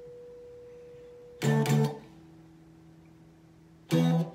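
Electric guitar played clean, with no distortion: power chords struck in pairs, two quick strikes about a second and a half in that ring on, then two more near the end.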